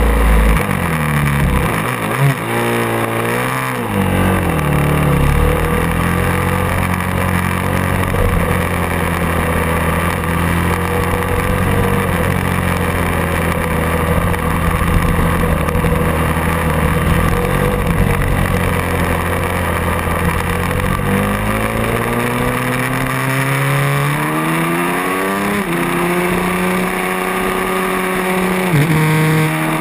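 Race motorcycle engine, heard from onboard. A rev blip comes a couple of seconds in, then the engine runs steadily at pit-lane speed for a long stretch. From about two-thirds of the way through it accelerates, with rising revs broken by an upshift and another near the end.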